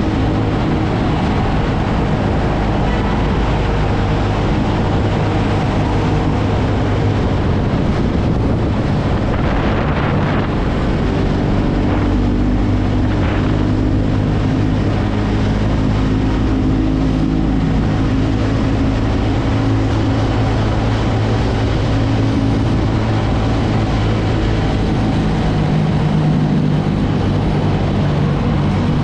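TVS Ronin motorcycle's single-cylinder engine running steadily while riding, the engine note stepping up and down a few times, with wind rushing over the microphone.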